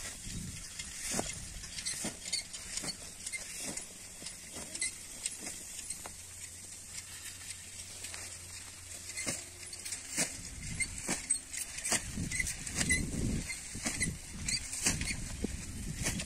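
Flat lay-flat irrigation hose rustling and crackling as it is unrolled by hand across dry, ploughed ground, in many irregular small crackles and taps.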